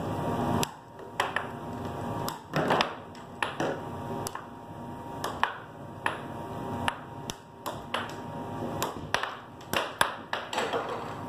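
Air hockey puck clacking against plastic mallets and the table's rails: a rapid, irregular string of sharp hits during play.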